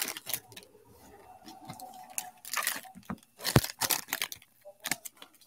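Foil trading-card pack wrapper crinkling and tearing under gloved hands. It comes in short bursts about two and a half and three and a half seconds in, with a sharp tap at the second.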